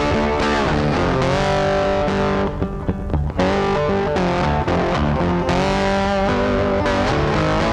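Background music led by a distorted electric guitar holding sustained notes, with a short break about two and a half seconds in.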